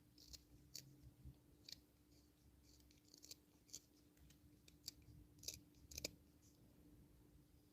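Faint, irregular small cuts and clicks of a hand carving knife shaving a small piece of wood, over a faint steady hum.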